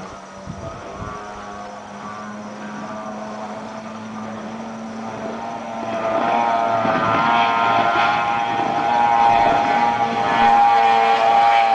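Speedboat engine running at high speed across open water: a steady, several-pitched drone that grows much louder about six seconds in as the boat comes closer, its pitch wavering slightly.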